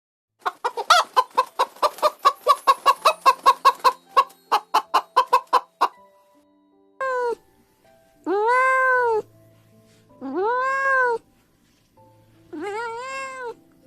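A chicken clucking rapidly, about five clucks a second for some five seconds. Then a cat meows four times, a short meow followed by three longer ones that rise and fall in pitch.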